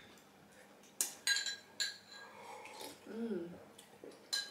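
Metal spoon clinking against a ceramic soup bowl several times in the first two seconds as soup is eaten, with a short vocal hum about three seconds in.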